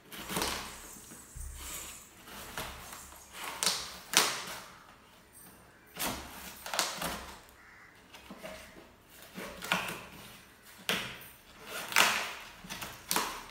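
Large flat cardboard box being worked open by hand: a run of irregular scraping and tearing rasps from the cardboard and its packing tape, with rustling in between.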